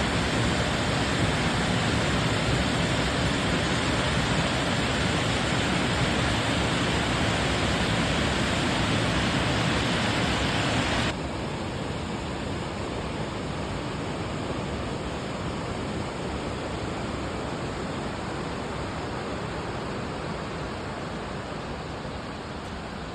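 The steady roar of Burney Falls' waterfall, an even rushing noise. It drops suddenly to a lower level about eleven seconds in and carries on steadily.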